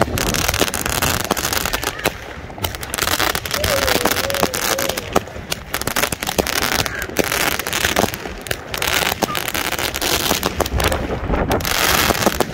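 Fireworks going off in quick succession: many sharp bangs and crackles, one after another, with people's voices in the background.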